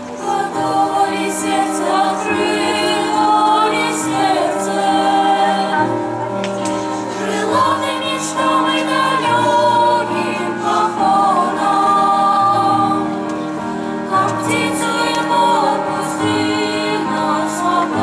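Boys' and young men's choir singing a song, several voices holding and moving between notes in parts.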